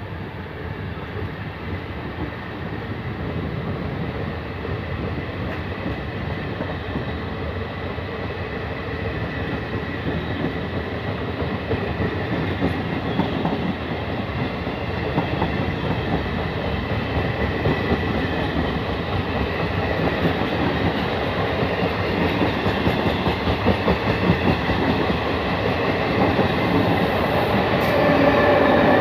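Trenitalia regional passenger train's coaches rolling past on the track, wheels running on the rails. It grows steadily louder toward the end.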